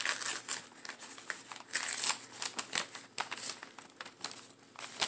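Packing material from a plant-mail box crinkling and rustling as it is handled, in short irregular crackles that die down near the end.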